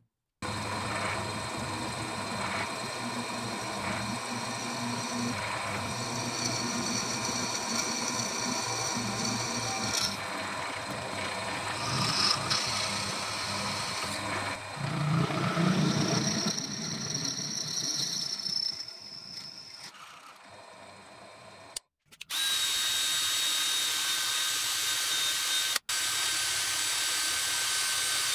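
Drill press running and boring into a wooden block held in a machine vise, the cut loading up briefly about halfway. After a break, a cordless drill spins a disc wheel against a workpiece clamped in a bench vise, a steady run with a thin high whine.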